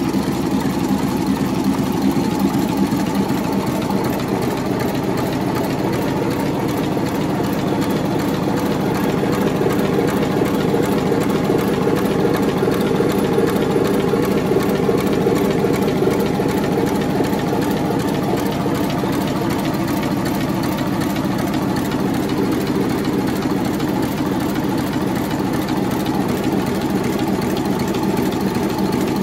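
A 37-ton twin-turbocharged diesel engine running steadily, with a fast, even beat of firing strokes.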